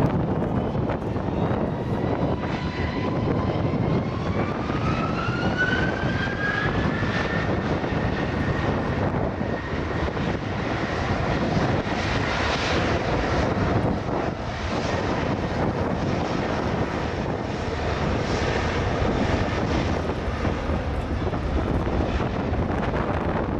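Airbus A380 jet engines running as a steady, loud rush. A whine rises in pitch about four seconds in, then holds level.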